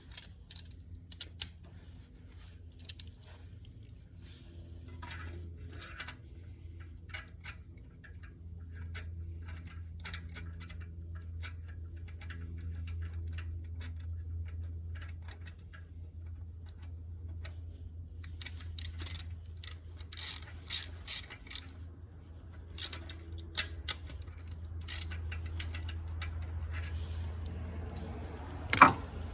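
Ratchet wrench clicking in irregular runs as a spark plug socket is turned, with a few sharper metal clinks; the loudest click comes near the end.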